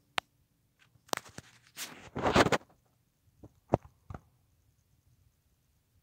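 Craftmade Pro Builder ceiling fan running with only a faint hum, with several sharp clicks and a brief louder rustling noise about two seconds in.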